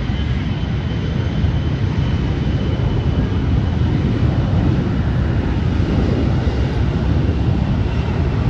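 Jet airliner engines: a steady, loud low rumble with a faint high whine above it.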